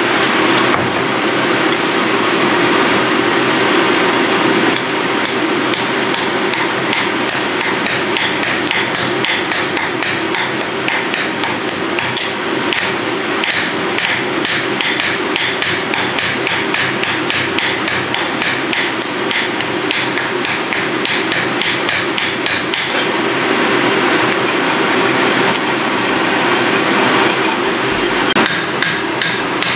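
Hand hammers striking a white-hot iron anvil body on an anvil in a quick, steady run of metal-on-metal blows, several a second. The smiths are forge welding the build-up pieces of a new anvil at welding heat.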